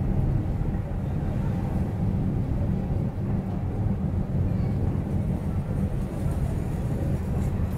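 A car driving slowly in city traffic: a steady low rumble of engine and tyre noise.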